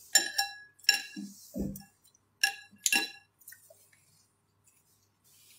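Chopsticks clinking against a glass bowl: four sharp ringing clinks, with a soft low bump between the second and third.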